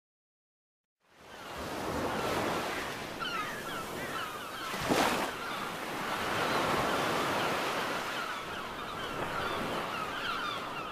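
Ocean surf washing onto a beach, fading in after about a second of silence, with a louder surge about five seconds in. Small high chirps repeat over the surf from about three seconds in.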